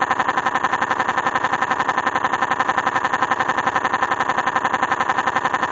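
Car engine running steadily with a rapid, even pulse.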